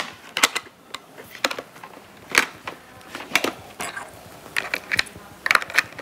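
Plastic peak visor of a Touratech Aventuro helmet being fitted back on by hand: a series of sharp plastic clicks and taps, irregular and about a second apart, as it is pressed onto its mounting points.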